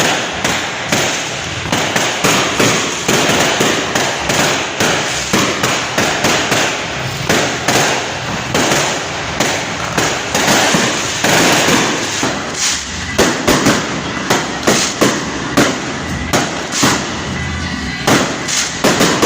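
Fireworks going off in a dense, continuous barrage of bangs and crackling. After about twelve seconds the bangs come more separately, each one sharp.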